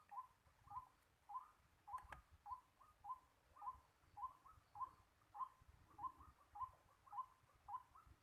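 Faint bird calls: a short note repeated steadily, about two a second, with one faint click about two seconds in.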